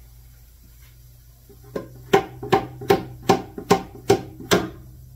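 Hammer striking a wooden box: one light tap, then seven sharp, even blows about two and a half a second.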